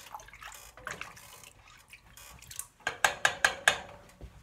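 Soup being stirred in a stainless steel pot with a cooking utensil, with faint liquid sounds and light clicks. Near the end the utensil is tapped about five times in quick succession against the pot, the loudest sounds.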